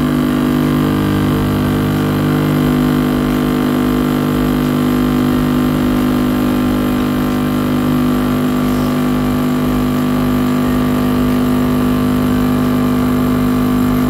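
Krups Dolce Gusto capsule machine's vibratory pump buzzing steadily as it pushes clean water through the machine, flushing out the vinegar and loosened scale after descaling.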